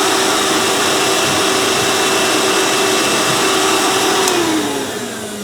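Old Hoover vacuum cleaner's motor running with a steady hum, then a click about four seconds in and the motor winding down, its hum falling in pitch as it slows. The hose attachment is giving no suction, which the user suspects is a clog.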